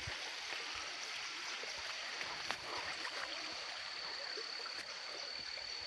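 Stream water flowing and rushing, with a thin, steady high-pitched tone above it and a couple of brief clicks.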